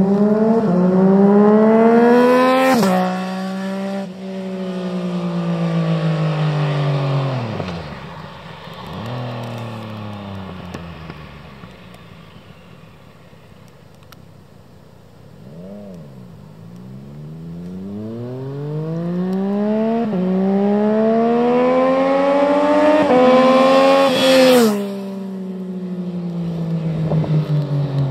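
Yamaha MT-09's inline three-cylinder engine through an Akrapovič titanium exhaust with the dB killer removed, making two fly-bys. Each time it accelerates up through the gears toward the microphone, its pitch drops sharply as it passes, and the note fades as it rides away.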